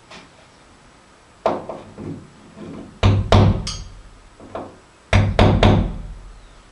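Hammer striking nails into a door: a few lighter taps, then two quick runs of three hard blows about two seconds apart, each blow a sharp knock with a low thud.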